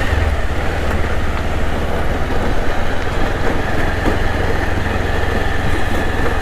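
Motorcycle engine running steadily while riding, with a heavy low rumble on the microphone.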